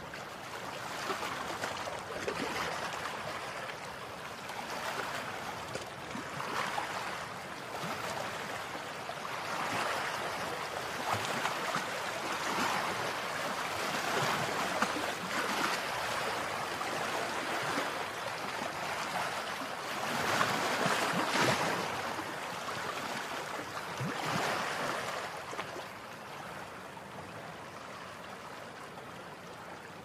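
Small ocean waves breaking and washing up a sandy beach: a steady rush of surf that swells and eases several times, loudest about two-thirds of the way through and quieter near the end.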